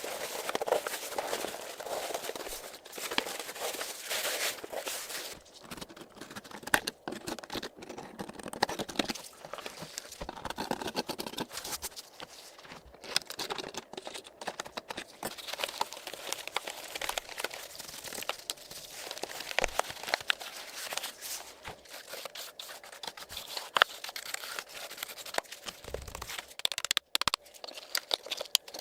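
A computer keyboard being cleaned by hand: irregular scrubbing and rustling across the keys, with scattered sharp clicks.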